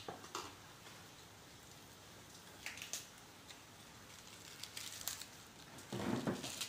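Eating utensils, a spoon and chopsticks, clicking against dishes and the pan: a few scattered light clicks, and a louder half-second clatter near the end.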